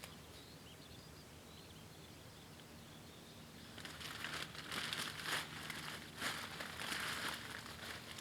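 Rustling and crinkling of dry material being handled, with small snaps, starting about four seconds in after a quiet stretch.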